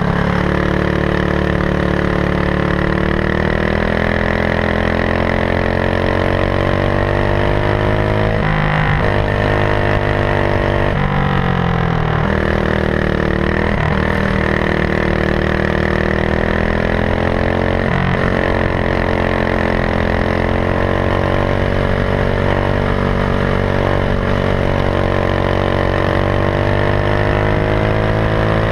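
Racing go-kart engine heard from on board at high revs. Its pitch climbs steadily on the straights and drops sharply several times in the first two-thirds as the driver lifts for corners, then climbs again.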